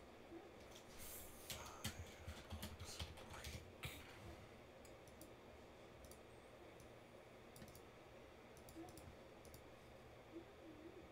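Faint computer keyboard typing: a quick run of keystrokes in the first few seconds, then a few scattered single clicks.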